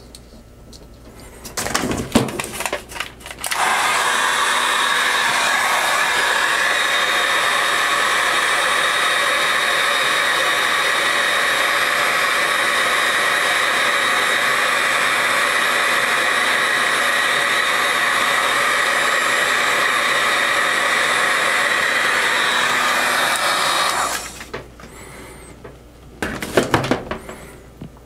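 Handheld heat gun switched on about three and a half seconds in and blowing steadily for some twenty seconds to shrink heat-shrink tubing over a wire splice, then switched off. Short clicks and rustles of handling come just before it starts and after it stops.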